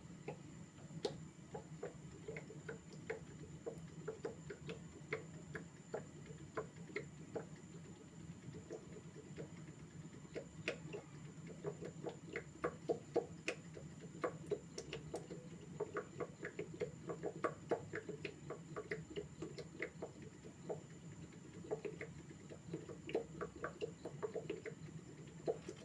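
Irregular light taps and clicks, several a second, of a knife cutting mandazi dough into small pieces on a board, over a low steady hum.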